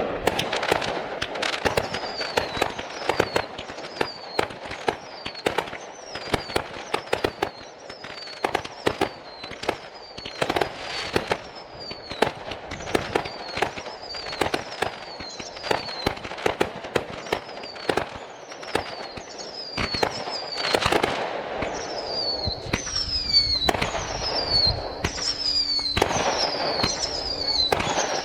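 Fireworks going off in quick succession: a dense run of sharp bangs and crackles, with many short whistles falling in pitch that come faster near the end.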